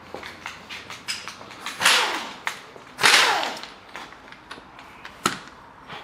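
Tool clatter: scattered clicks and knocks, with two short loud hissing bursts about two and three seconds in.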